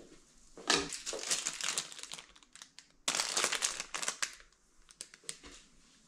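Clear plastic bags crinkling as bagged Japanese curry bread pastries are handled and set down on a table. The crinkling comes in two bursts, about a second in and about three seconds in, with a few lighter rustles near the end.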